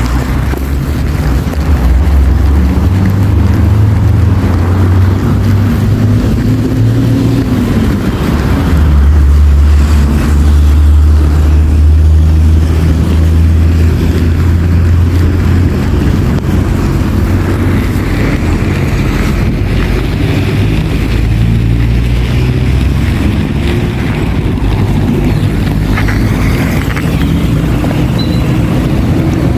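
City street traffic with the deep, steady engine rumble of passing heavy vehicles. The rumble is loudest from about a third of the way through to just past the middle, and engine pitch rises slowly now and then as vehicles pull away.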